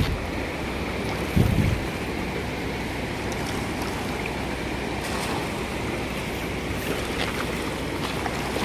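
Steady rushing of the Teesta River's fast, muddy current, with wind on the microphone. Two brief low thumps come near the start.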